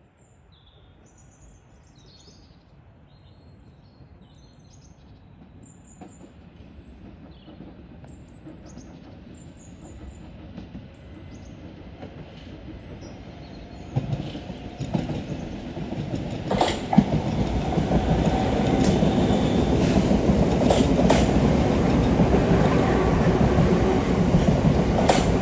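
Southeastern Class 465 electric multiple unit approaching and passing close by, its running noise growing from faint to loud over about fourteen seconds and staying loud as it goes past. Sharp wheel clicks ring out over the points and rail joints, several of them in the last ten seconds.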